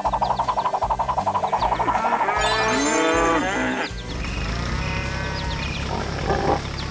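Cartoon farm-animal calls over background music: a fast warbling bleat-like call, then several gliding animal calls, after which only the music carries on.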